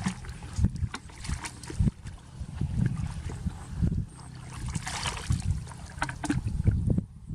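Water sloshing and trickling, with irregular low knocks and bumps.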